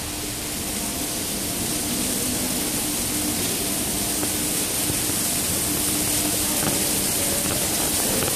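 Floodwater pouring down a metro station staircase: a steady rushing hiss that grows a little louder toward the end, over a faint steady hum.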